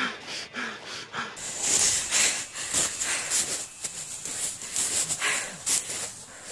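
A person breathing hard and fast close to the microphone, with rustling of dry grass. The breaths come about twice a second and grow louder and hissier after the first second or so.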